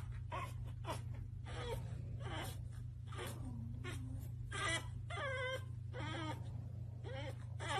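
Pug puppy whining and whimpering in a run of short, high calls that rise and fall in pitch, with a low steady hum underneath.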